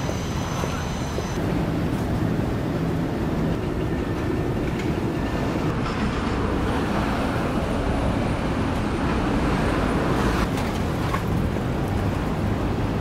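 Steady rumbling noise of vehicles in motion, unbroken, swelling slightly about ten seconds in.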